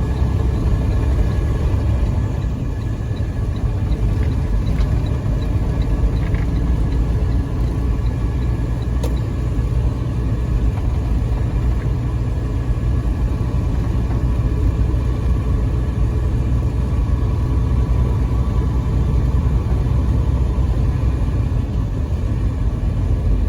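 Semi-truck diesel engine running with a steady low rumble, heard from inside the cab as the truck drives off. A faint, evenly spaced ticking sounds during the first few seconds.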